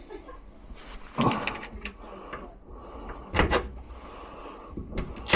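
Metal door-lock hardware being handled and fitted, giving several sharp clunks and clicks: one about a second in, a double knock past three seconds, and two close together near the end.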